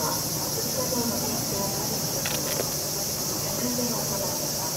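A steady, high-pitched chorus of night insects singing, with faint voices in the background.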